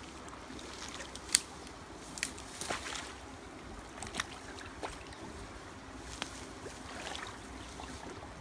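Water sloshing and swirling around a person wading waist-deep through a stream, with several sharp clicks or splashes, the loudest about a second and a half in.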